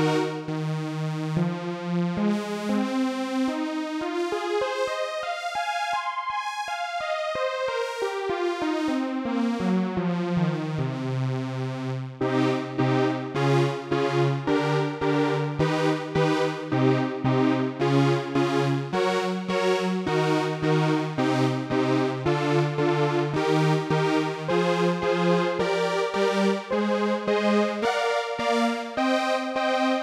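Behringer DeepMind 12 analog polysynth playing a supersaw patch: thick, rhythmically pulsing chords of stacked detuned sawtooth waves. Over the first ten seconds or so the bass drains away and then sweeps back in, and from about twelve seconds in the pulsing chords move over a changing bass line.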